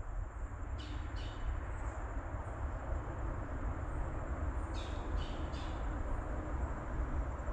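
A bird giving short calls, two about a second in and three more around five seconds in, over a steady hiss and low rumble of the woods.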